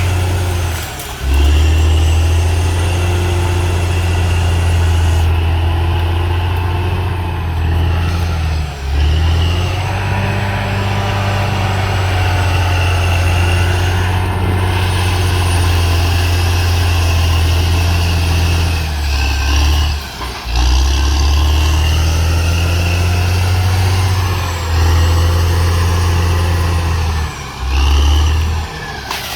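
CAT D6R XL bulldozer's diesel engine running steadily with a deep drone, broken by a few brief dips in level.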